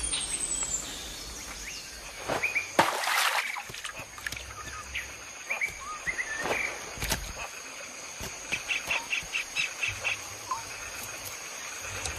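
Outdoor nature ambience: scattered bird chirps, a quick even run of about seven short notes and a falling whistle at the start, over a steady high thin tone. A louder rush of noise comes about three seconds in.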